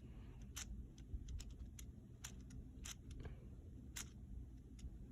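Faint, irregular clicking of plastic Lego Technic parts as a Lego V8 engine model is handled, roughly one or two small clicks a second.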